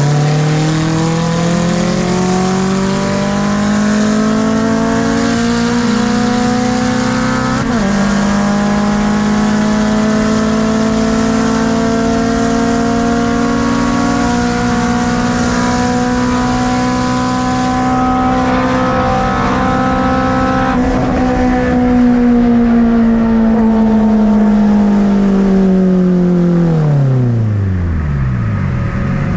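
Four-cylinder Honda K24 engine in a swapped EP3 Civic pulling hard at full throttle, heard from inside the car. The engine note climbs, drops sharply with a gear shift about eight seconds in, then climbs again and holds high for a long stretch before falling away steeply near the end as the car slows.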